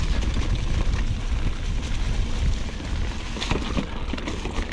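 Steady low rumble of wind buffeting the microphone, with a few faint clicks about three and a half seconds in.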